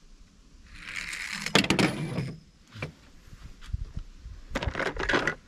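Small die-cast toy car rolling along a wooden board: a rattling roll with sharp clicks and knocks, in two bursts, the louder about a second and a half in.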